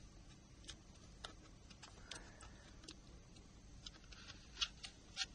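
Faint, scattered small clicks and scrapes of metal tweezers and small tools on the plastic parts of a Nokia N-Gage phone being taken apart, with a couple of louder clicks near the end.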